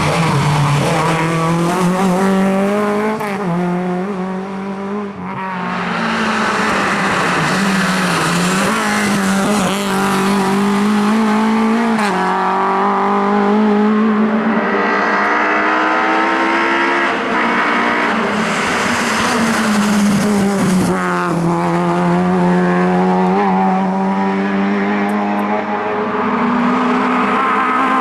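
Rally car engine revving hard at high load, its pitch climbing and then dropping sharply at each gear change, several times over.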